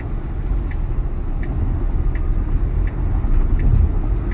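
Cabin sound of a 2022 Tesla Model Y electric SUV on the move: a steady low road and tyre rumble with no motor whine. Faint light ticks come about every three-quarters of a second.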